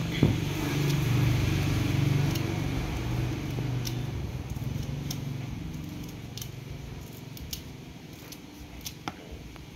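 Scissors snipping kaffir lime leaves, a scattered series of short sharp clicks about every half second to a second. Under them is a low hum that is loudest near the start and fades away by about halfway through.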